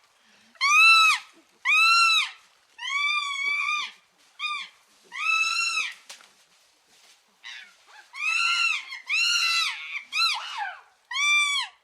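An animal calling over and over, about ten high-pitched cries, each rising and then falling in pitch and lasting up to about a second.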